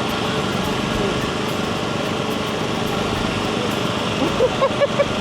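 Steady drone of a small engine running, with a handful of short, higher-pitched sounds about four seconds in.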